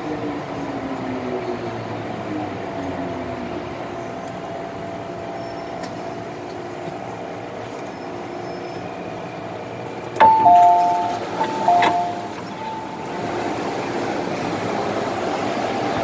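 MTR M-Train braking to a stop: the motor whine falls in pitch, then the car hums steadily. About ten seconds in, the door chime sounds, loud alternating two-tone beeps for about two seconds, as the doors open.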